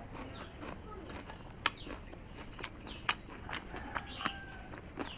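Mouth sounds of someone eating by hand, chewing a mouthful of rice and boiled mustard greens (lai saag): wet chewing and lip smacks, with sharp clicks every half second or so. Birds chirp faintly in the background.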